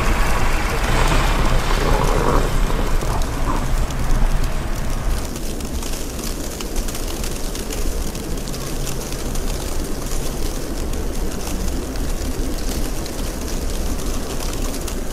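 Wind buffeting the microphone in a snowstorm: a constant deep rumble under an even hiss. It is louder and fuller for the first five seconds, then settles.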